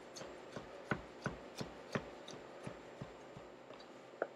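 French knife dicing peeled tomatoes on a plastic cutting board: quick, even cuts, about three a second, with one louder knock of the blade on the board near the end.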